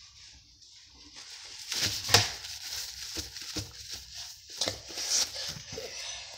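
Homemade slime being handled and squished: irregular wet clicks and smacks, starting about a second in, with the loudest just after two seconds.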